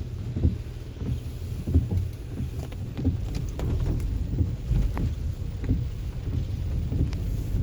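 Rain with wind buffeting the microphone: a steady low rumble broken by irregular knocks and sharp ticks of drops hitting nearby.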